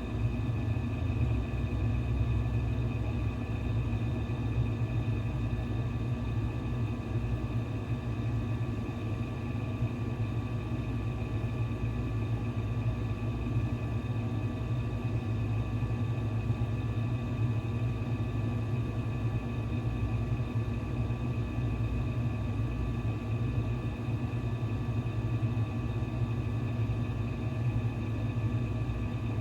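Steady low background hum with faint high steady tones running through it, unchanging throughout; no distinct events.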